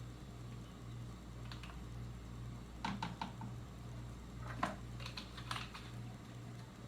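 Scattered light clicks and taps of a measuring spoon against a spice jar and a plastic tub as chili powder is measured out, over a low steady hum.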